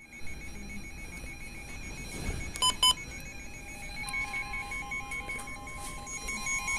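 Electronic emergency alert tones for a blizzard warning: a fast on-off beeping pattern, two loud short beeps near the middle, then a steady held tone from about four seconds in.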